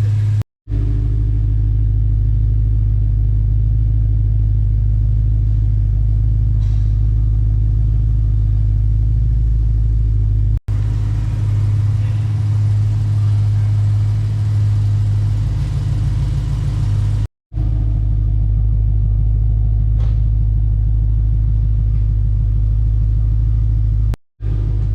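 BMW E92 M3's S65 V8 engine running steadily with a deep, even drone, on freshly replaced fuel injectors. It is broken by a few brief dropouts, about half a second, ten, seventeen and twenty-four seconds in.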